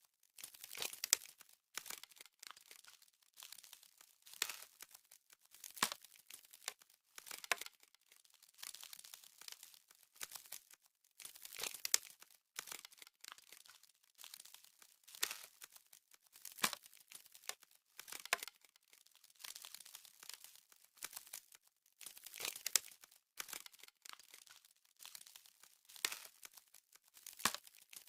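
Ice frost sound effect: crisp crackling and crunching like ice forming and cracking, coming in repeated bursts every second or two with fainter crackle in between.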